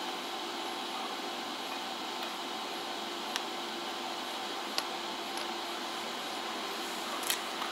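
Steady hum of an arc welding machine left running between tack welds, with no arc struck. Three short sharp metal clicks come a second or more apart, as rod and steel parts are handled.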